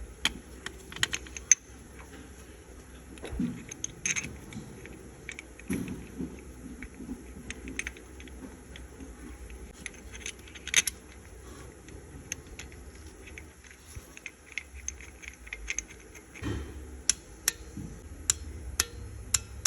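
Scattered light metallic clinks, taps and scrapes of hand tools and small metal parts while a timing chain tensioner is fitted to a Volkswagen Scirocco four-cylinder petrol engine. The clicks come irregularly, with a few sharper knocks, one of the loudest about eleven seconds in.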